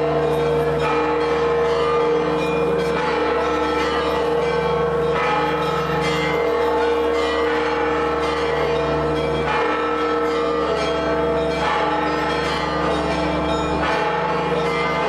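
Church bells ringing continuously, with overlapping strikes about once a second and their tones hanging on between strikes.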